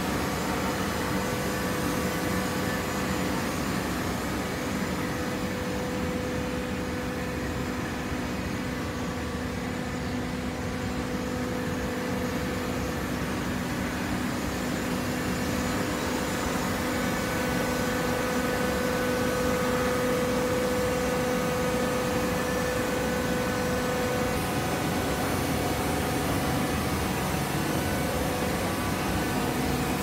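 Fully automatic horizontal hydraulic baler running: a steady machine hum with a steady whine from its hydraulic power unit, the whine growing stronger past the middle.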